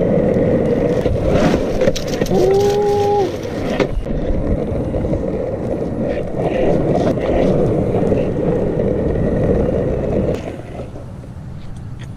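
FPV quadcopter in flight: steady rushing wind and motor noise picked up by the onboard camera's microphone, easing off a little near the end. A brief steady tone sounds for about a second, about two seconds in.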